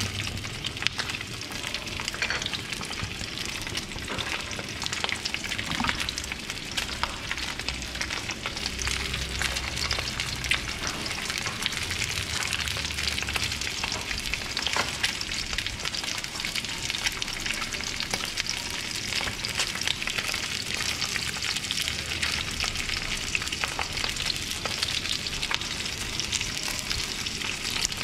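Chunks of fish frying in hot cooking oil in a frying pan: a steady sizzle with many small sharp pops and spits throughout.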